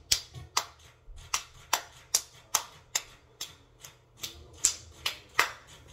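Hand claps in a steady beat, about two and a half a second, some sharper and some softer.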